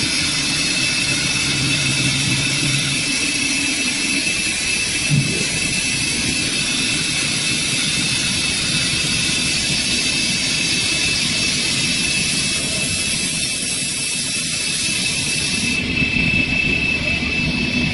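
Four-spindle CNC wood turning lathe running, its cutters turning four wooden spindles at once: a steady machine noise with a constant high whine, and a brief low swell about five seconds in.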